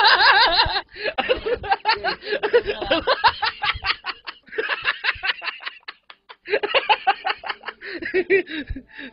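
Laughter in quick, pulsing bouts of giggles and chuckles, breaking off briefly about a second in and again around four and six seconds.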